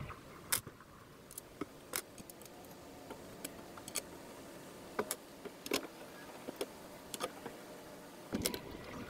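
Scattered light clicks and taps of a wooden lid being fitted and pressed down onto a wooden box, with a busier patch of knocking near the end.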